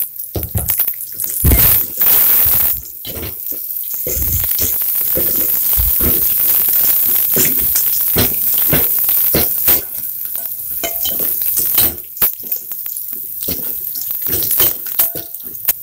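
Sliced onions frying in hot oil in an aluminium pot, sizzling steadily as they soften, while a metal ladle stirs them, scraping and clinking against the pot again and again.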